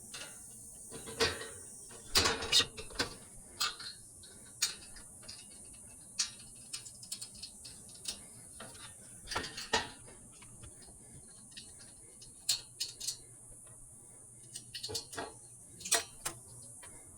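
Irregular mechanical clicks and clacks, some in quick clusters, over a faint steady low hum.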